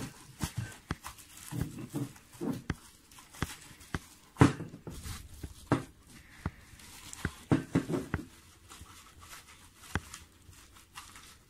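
Plastic bubble wrap and a plastic bag crinkling and rustling in irregular bursts of sharp crackles as a telescope accessory is unwrapped by hand; the loudest crackle comes about four and a half seconds in.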